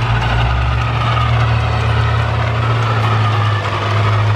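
Fiat 1000 Super DT tractor's six-cylinder diesel engine running steadily under load while pulling a plow through the soil.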